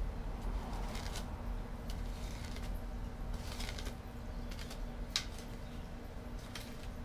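Shovel digging into soil and roots around a bush's root ball: about five short scrapes, spread a second or so apart, the sharpest about five seconds in.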